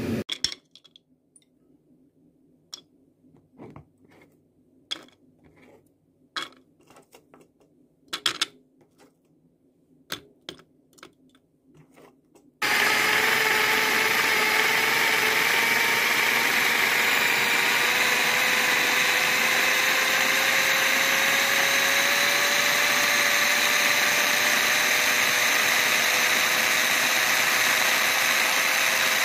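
A few scattered knocks and clicks. About halfway through, a small electric food chopper starts abruptly and runs steadily, grinding shallots, with a motor whine that rises slowly in pitch.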